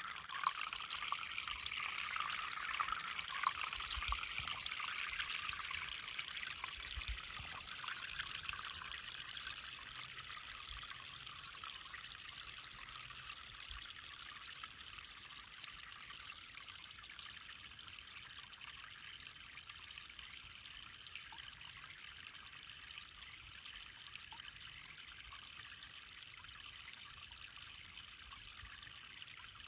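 A small brook babbling: steady running water, louder in the first few seconds and settling a little quieter after about ten seconds.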